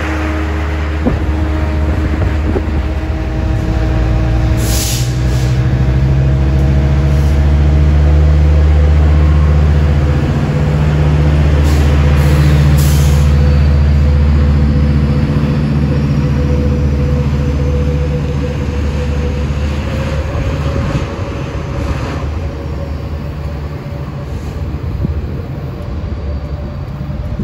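Metrolink commuter train's diesel locomotive working hard as it pushes its train out of the station, a loud low engine drone that builds over the first several seconds and then slowly fades as the train draws away. A few short hisses come about five and twelve seconds in, and a faint high wheel squeal runs through the second half.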